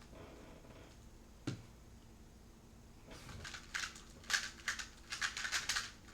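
A 2x2 speed cube being handled and turned: one sharp plastic click about 1.5 s in, then a quick irregular run of clicks and clatter over the last three seconds.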